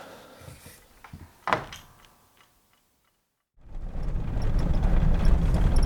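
A short knock about one and a half seconds in, then a brief silence, then from about halfway through a steady low rumble of a vehicle running and driving.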